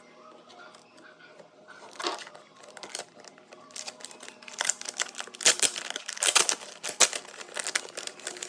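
Packaging being crinkled and rustled by hand in irregular crackling bursts, starting about two seconds in and growing loudest in the second half.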